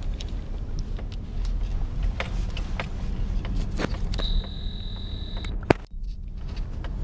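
Pickup truck driving, a steady low rumble of engine and road noise inside the cab, with knocks and rustles from handling the phone. A little past four seconds a steady high tone sounds for just over a second, and a sharp click follows near six seconds.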